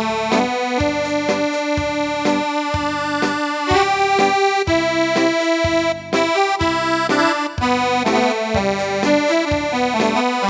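Casio CT-X5000 electronic keyboard playing a held-note melody over its built-in rhythm accompaniment, a Korean bar-style beat with bass and drums striking at an even pace.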